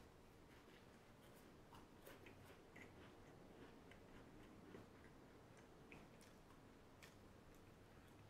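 Very faint chewing of a cracker: scattered small crunches and mouth clicks over quiet room hiss.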